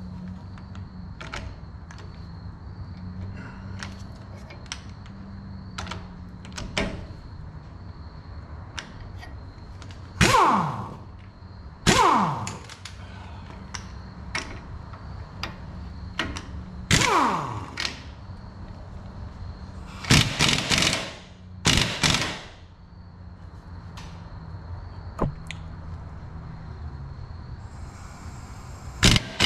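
Impact wrench driving the screw of a ball joint press in five short hammering bursts, each opening with a falling whine as the tool loads up, pushing a worn upper ball joint out of the steering knuckle. Light metal clicks come first as the press is set.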